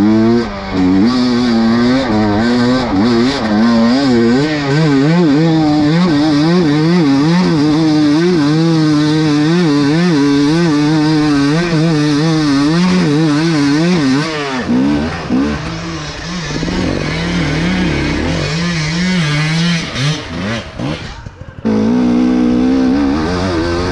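KTM 300 EXC two-stroke enduro bike engine revving up and down constantly as the throttle is worked on rough trail. About two-thirds in it drops to a quieter, uneven note for several seconds, then comes back on hard near the end.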